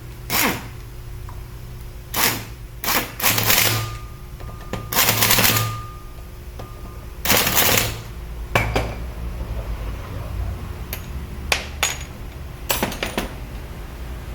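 Metal parts and hand tools clicking and clattering as a car air-conditioning compressor is put back together, with several noisy rushes about a second long, over a steady low hum.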